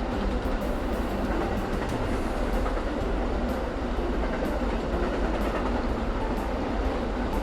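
Bullet train running along the track: a steady rushing rumble with faint clicks now and then.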